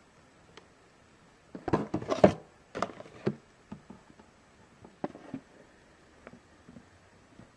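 Handling noise from a boxed figure and its packaging: a cluster of knocks and rustles about two seconds in, followed by scattered lighter clicks.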